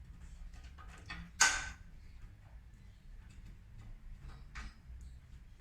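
Small clicks and taps from a PC case's tempered-glass side panel being opened and handled, with one sharp knock about a second and a half in and a softer one near the end.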